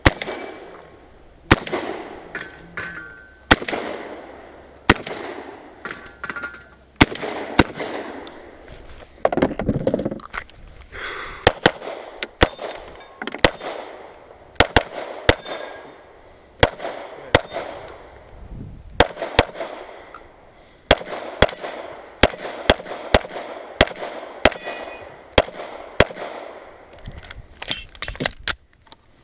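Gunshots in quick succession during a 3-gun stage, about one every second or two at first and coming faster in the second half. Some shots are followed by the short ring of hit steel targets.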